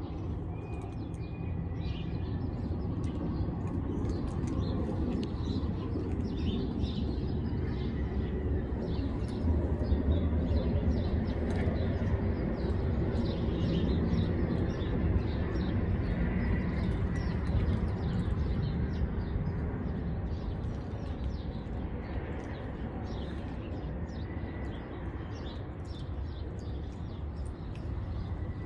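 Small birds chirping steadily in many short calls, over a steady low rumble.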